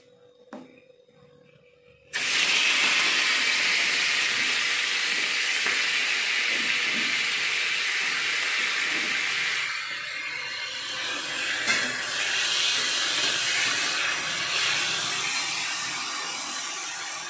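Sliced tomatoes hitting hot oil in a steel wok: a loud sizzle starts suddenly about two seconds in and slowly dies down as they are stirred with a metal spatula, with one brief clink of the spatula partway through.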